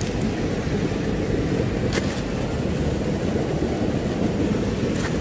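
Steady low rumble of wind buffeting the microphone on an open shore, with two faint clicks, about two seconds in and near the end.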